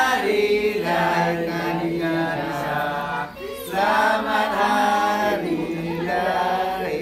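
Several people singing a birthday song together, in sustained phrases with a brief pause about halfway through.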